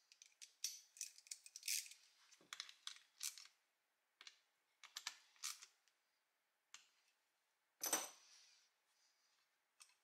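Metal parts of a vintage Sears Kenmore hair dryer clicking, scraping and clinking as they are handled and fitted back into its metal housing, with a louder clack about eight seconds in.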